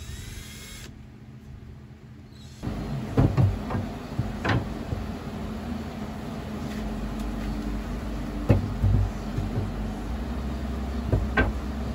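Wooden shelf boards knocking and clunking as they are set into a metal wire wall-shelf frame: a quiet start, then, from about two and a half seconds in, scattered sharp knocks and thumps over a steady low hum.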